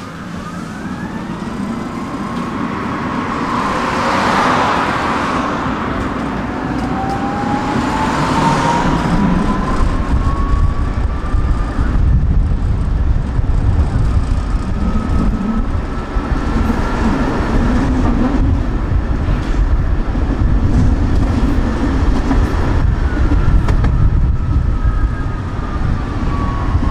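Electric tram pulling away: the traction motors' whine rises in pitch as it gathers speed, over a steady rumble of wheels on rails. Near the end the whine glides back down as the tram slows.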